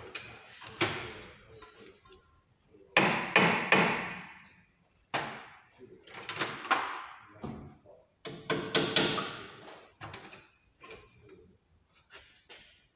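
Metal hand tools clanking and knocking, about a dozen sharp strikes in loose groups of two or three, each ringing on briefly in the echo of a large workshop.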